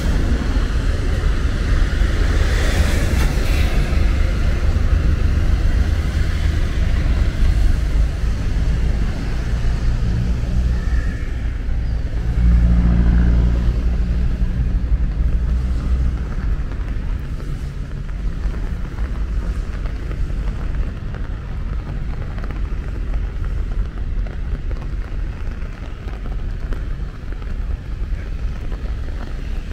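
Wind rumbling on the microphone over the hiss of traffic on a wet city street. The traffic hiss fades after the first few seconds, and a stronger gust comes about twelve seconds in.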